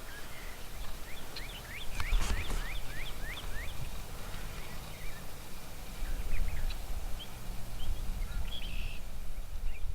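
Rio Grande wild turkey gobbling, a quick run of short rattling notes, over a steady low rumble.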